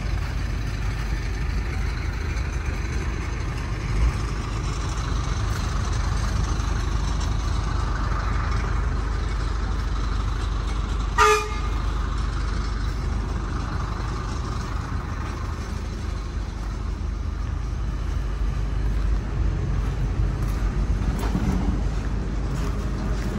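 Heavy vehicle engines running with a steady low rumble, and one short horn toot about halfway through.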